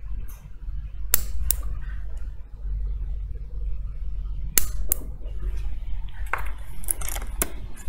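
Several sharp small clicks and clinks from hands and tools working on an opened iPhone at a repair bench: a pair about a second in, another pair halfway, and a few more near the end, over a steady low hum.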